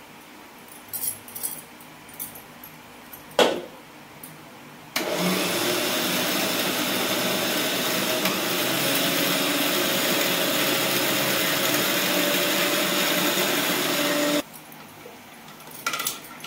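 Electric mixer grinder grinding wet batter for chakuli pitha: a loud, steady whir that starts abruptly about five seconds in and cuts off suddenly near the end, about nine seconds later. Before it, clicks and a sharp knock as the steel jar is handled on the base; after it, a few more clicks.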